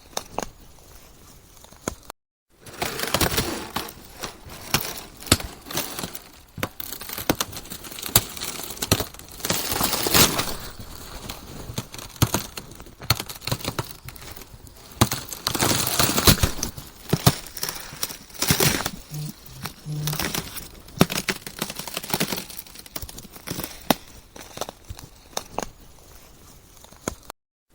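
Ice cracking and crunching: a dense, irregular run of sharp cracks and crackles with louder swells. The sound drops out completely for a moment about two seconds in and again just before the end.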